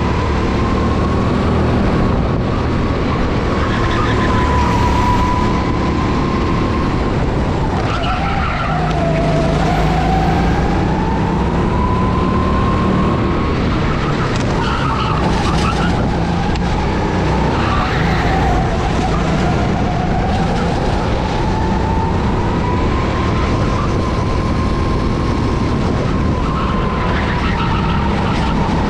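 Go-kart engine running hard on a lap, heard from on board, its pitch climbing on the straights and dropping for the corners, dipping most deeply twice, about a third of the way through and again past halfway.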